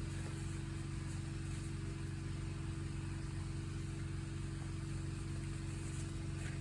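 A steady, low background hum, unchanging throughout, from a running machine or electrical appliance.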